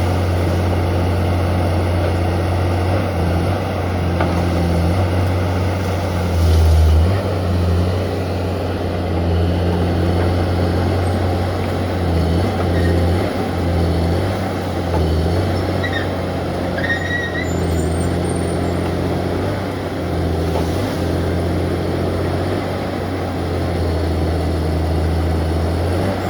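Valmet 415 forestry machine's engine running steadily, a loud low drone that shifts slightly in level, with a couple of brief high squeaks about two-thirds of the way through.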